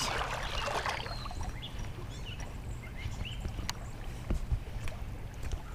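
Steady wash of river water flowing around a wading angler, with a few faint clicks about four seconds in.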